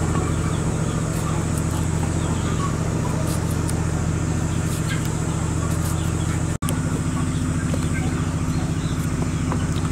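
Steady low droning hum of several unchanging tones, broken by a brief dropout about six and a half seconds in.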